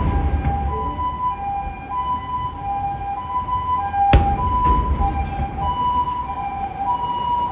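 Two-tone hi-lo emergency siren, the alternating pattern of a Japanese ambulance, with a single sharp firework bang about four seconds in over a low rumble.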